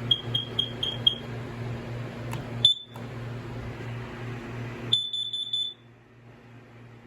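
Kidde battery-operated carbon monoxide alarm sounding under test: high-pitched beeps, first a quick run of five short beeps, then a single beep a couple of seconds later, then a fast string of beeps about five seconds in. A steady low hum runs underneath.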